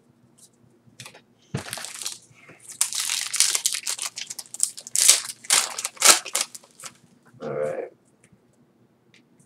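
Foil Yu-Gi-Oh booster pack wrapper being crinkled and torn open by hand, with a few seconds of rustling and ripping that starts about a second and a half in.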